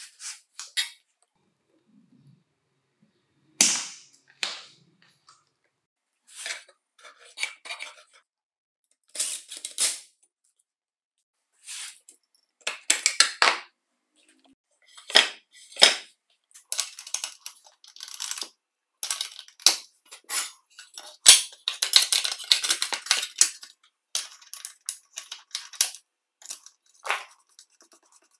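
Metal parts and hand tools clinking, clicking and scraping against a circular saw's aluminium housing as it is reassembled: a hex key, the arbor flange and the saw blade being fitted. Short, sharp clinks come one at a time with pauses between, and a busier run of rattling clatter comes about three quarters of the way through.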